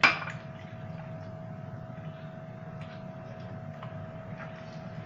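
A sharp knock right at the start that dies away within a fraction of a second, then a steady low hum with a thin steady tone through it and a few faint soft ticks as a hand mixes oil into beaten eggs and sugar in a terracotta dish.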